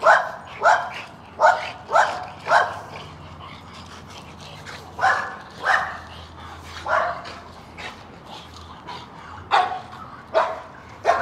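A dog barking in short, sharp barks: a quick run of five in the first two and a half seconds, a pause, then single barks every second or so in bunches.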